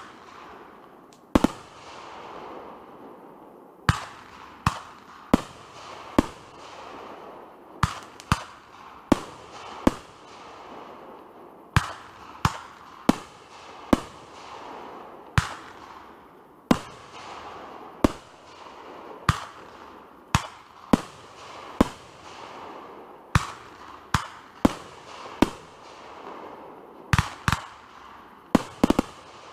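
Fireworks display: a rapid, irregular series of sharp bangs, about one a second, with a steady hiss between them.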